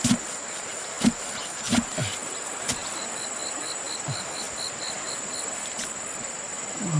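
Steady high-pitched insect chorus. About three seconds in, a run of short chirps comes at about four a second. A few short low plops with falling pitch come in the first half.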